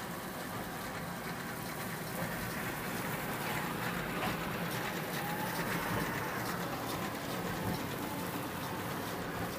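Heavy farm machinery running steadily in the field, a constant engine hum under a rushing hiss that swells a little in the middle.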